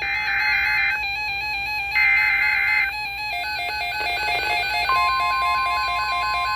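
NOAA Weather Radio Emergency Alert System tones: two bursts of SAME digital header data, a harsh warbling screech lasting about a second each. About five seconds in, the steady 1050 Hz weather-radio alarm tone begins, announcing the next alert.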